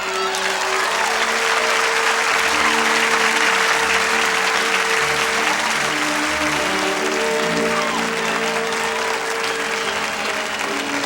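A crowd applauding, with background music playing under it.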